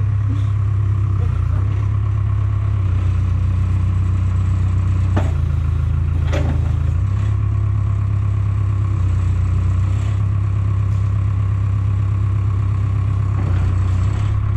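Heavy equipment engine running steadily at a constant speed, with two sharp clanks about five and six and a half seconds in.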